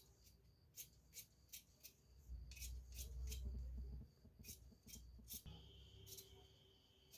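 Large steel tailor's shears snipping repeatedly through the seam allowance along a stitched fabric piping edge, trimming the excess. The snips come as quick, sharp clicks in short runs, with a low rumble of handling in the middle.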